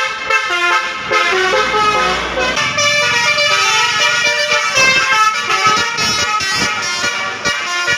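Bus's Basuri telolet horn playing a tune: loud horn notes that change pitch in steps, one after another without a break.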